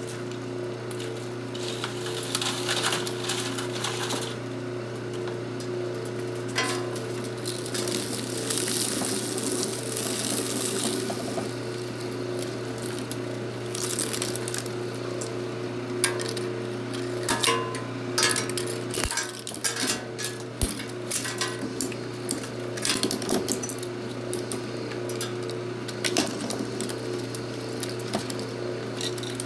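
Twin-shaft shredder grinding 3D-printed plastic supports and failed prints: a steady motor hum under irregular sharp cracks and snaps as the plastic breaks, with the shreds clattering out. The cracking comes thickest in the second half.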